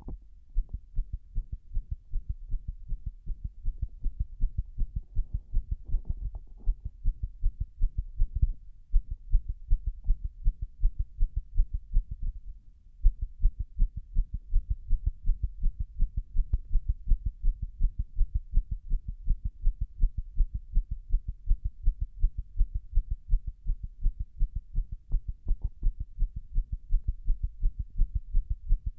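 A human heartbeat, heard close up as a rapid train of low thuds, several a second. There is a brief pause about halfway through. The uploader presents these heart sounds as an arrhythmia.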